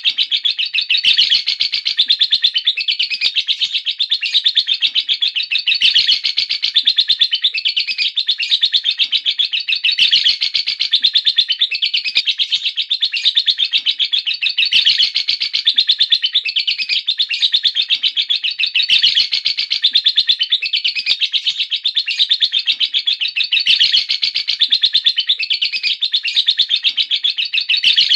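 Lovebird singing a long, unbroken 'ngekek' chatter: a rapid string of high, shrill chirps that swells and eases every few seconds without pausing.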